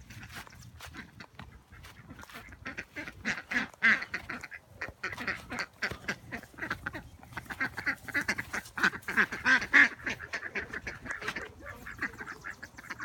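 Several ducks quacking in quick runs of short calls, starting about two seconds in and continuing busily to the end.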